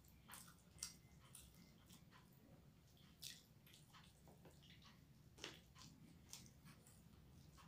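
Faint, close-miked eating sounds: wet chewing and sharp mouth clicks and smacks at irregular intervals, with soft squishing as fingers mix rice near the start.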